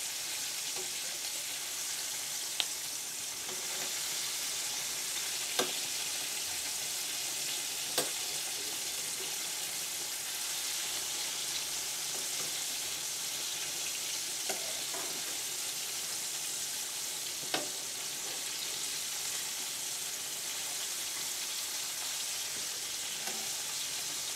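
Breaded chicken pieces deep-frying in hot oil on medium heat: a steady bubbling sizzle. About five sharp clicks of metal tongs stand out as the pieces are turned over.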